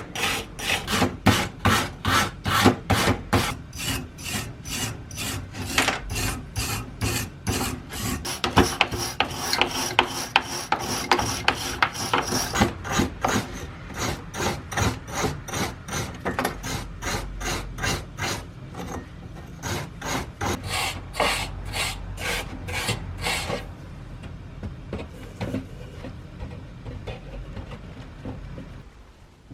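Rust being rubbed off the rusty steel of a Dietz D-Lite No. 90 oil lantern by hand with an abrasive, in steady back-and-forth rasping strokes about three a second. The strokes grow fainter and duller after about twenty-four seconds.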